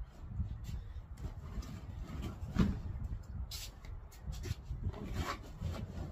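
Scattered light knocks, clicks and rubbing as things are handled and moved on a porch, with one sharper knock about two and a half seconds in, over a low steady rumble.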